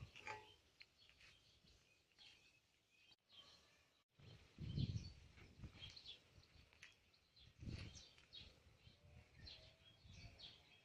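Faint outdoor ambience with scattered small bird chirps, broken by two short low rumbles about five and eight seconds in.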